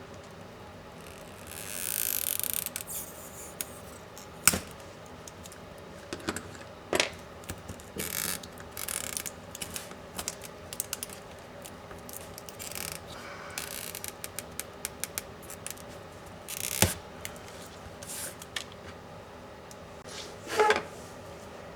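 Small plastic and metal laptop parts being handled and worked apart by hand during a teardown of a Dell Inspiron 15 7586 2-in-1. There are scattered sharp clicks and taps, a few short scraping rustles, and a run of light rapid ticks in the middle.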